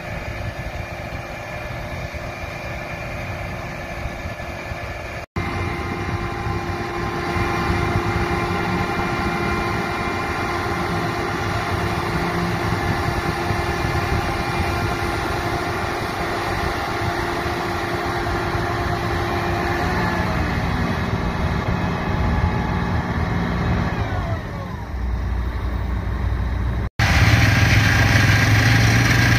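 Combine harvester running steadily: an engine rumble under several steady whining tones from its drives. About twenty seconds in, the whines fall in pitch as the machinery winds down. The sound breaks off abruptly twice.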